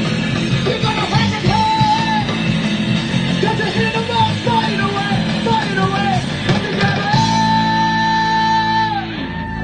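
Live punk rock band playing: electric guitar, bass guitar and drums, with a singer singing and yelling. About seven seconds in, the band and singer hold one long chord and note to end the song, which stops near the end.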